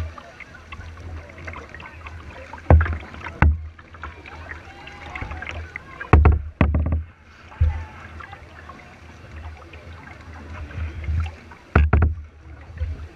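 Kayak paddling on a river: water splashing and lapping around a plastic kayak hull, broken by several sudden thumps, bunched near 3 s, 6 s and 12 s. Faint voices of other paddlers carry underneath.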